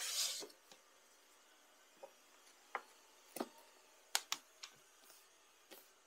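A hand brushing over a wooden floor, then a handful of faint separate clicks and taps as a thin wooden ramp strip on double-sided tape is handled and pressed down against a door sill.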